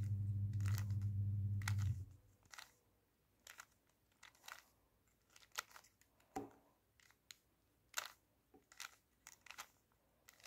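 Plastic Axis cube being turned by hand: scattered short clicks of its layers turning, a few each second. A steady low hum under the first two seconds cuts off abruptly.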